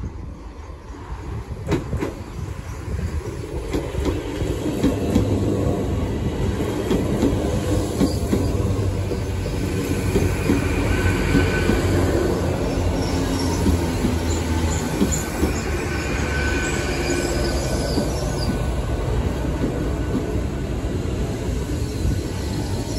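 GWR Class 802 bi-mode Intercity Express Train, two five-car units coupled, passing close by on its underfloor diesel engines. A steady low drone and wheel rumble build over the first few seconds and then hold, with clicks over the rail joints and a thin high squeal from the running gear now and then around the middle.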